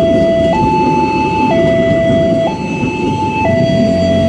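Electronic two-tone warning alarm of a railway level crossing, switching between a high and a low note about once a second, over the rumble of a passenger train's wheels passing on the rails. The rumble dies away about three seconds in and a low hum joins near the end, as the barrier arm begins to lift.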